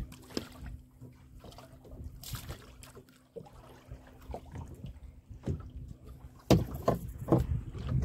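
Water lapping quietly at a small open boat's hull, with a faint steady hum and a few light knocks, then a cluster of loud thumps and knocks about six and a half seconds in as a handlined grouper is hauled up over the side into the boat.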